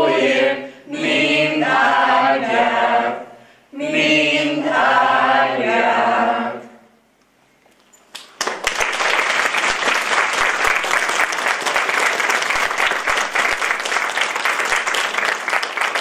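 Small mixed choir singing a cappella, its last two phrases ending about seven seconds in; after a short pause the audience breaks into steady applause.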